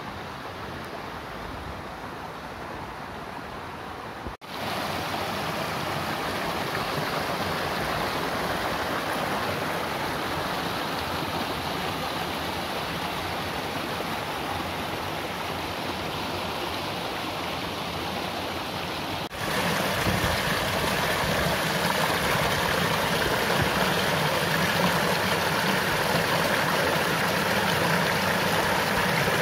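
Mountain stream rushing and splashing over rocks, a steady wash of water. It drops out for an instant about four seconds in and again about two-thirds of the way through, coming back louder each time.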